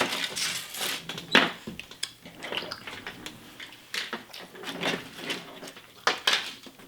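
Small plastic Kinder Surprise toy parts and capsules being handled, clicking and clattering together on a table in irregular bursts, with one louder clack about a second and a half in.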